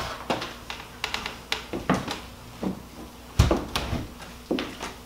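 A house front door being opened and shut by hand, with a run of clicks and knocks from the lever handle and latch and one heavy thump about three and a half seconds in.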